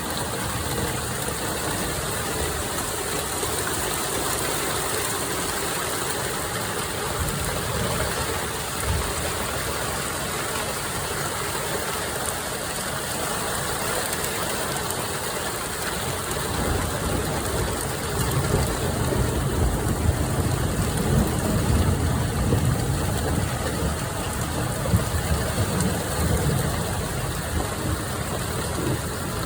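Ice pellets or hail falling steadily in a storm, a dense even hiss of many small impacts. A low, uneven rumble grows louder from a little past halfway.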